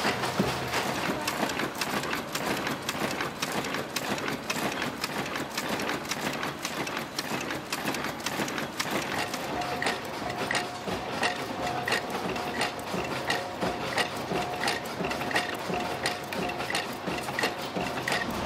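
Automatic spoke-making machine for motorcycle wheel spokes running. It makes a fast, steady metallic clatter, with a sharper regular click about twice a second in the second half.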